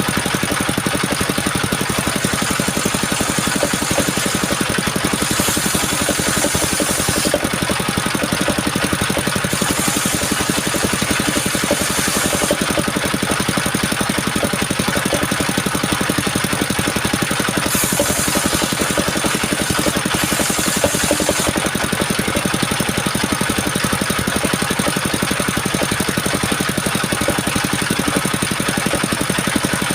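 Engine powering a mobile circular sawmill, running steadily with an even pulsing beat. A high hiss joins in three times, for a few seconds each, at about five, ten and eighteen seconds in.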